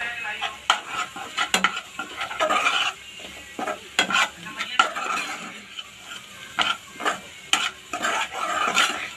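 A metal spoon stirs and scrapes chopped vegetables and masala around a metal kadai. It makes frequent sharp clinks of metal on metal at an uneven pace, over the light sizzle of frying.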